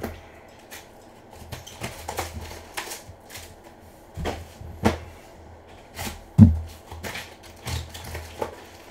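Cardboard trading-card box being handled and opened on a table: scattered taps and knocks, with two louder thuds midway as the box is set down, and cardboard flaps rubbing as the lid is pulled open.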